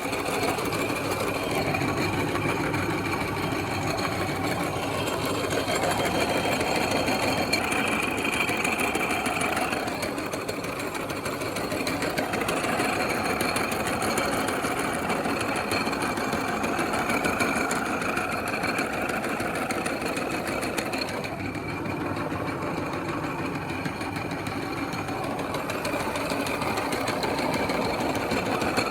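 Electric meat grinder running steadily with a continuous motor whirr and grinding, as bubble gum is fed through it.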